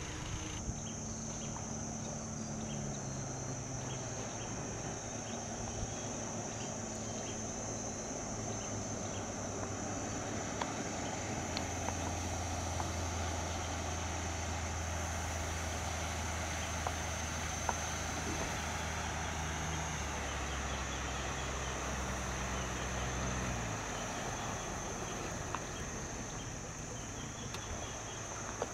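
An engine running at low speed, its low hum changing pitch a few times and louder through the middle stretch, under a steady high chirring of insects.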